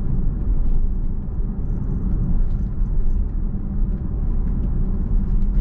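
Steady low rumble of tyre and road noise inside a Tesla's cabin while it drives at about 30 mph, with no engine note from the electric drivetrain.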